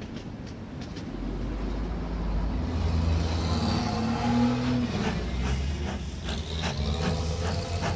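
A train running on the rails. Its low rumble grows louder over the first three seconds, and the wheels click repeatedly in the second half.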